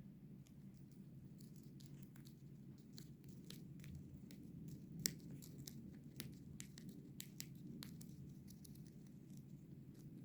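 Small parrot tearing paper with its beak: faint, irregular little rips and clicks, one sharper click about five seconds in, over a steady low hum.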